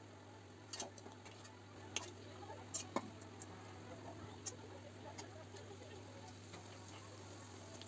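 Scattered sharp clicks and taps of a slotted metal spoon against a steel kadai while papad is fried in hot oil, the loudest about three seconds in with a short metallic ring. A steady low hum runs underneath.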